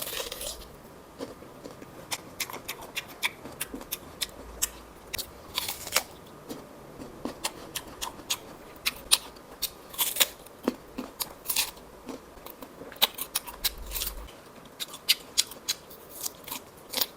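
Close-miked biting and chewing of a ripe peach: many sharp, crisp clicks and crunches at an irregular pace.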